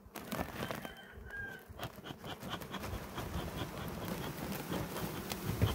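Honeybees buzzing steadily around an opened hive, with several sharp clicks and knocks in the first two seconds.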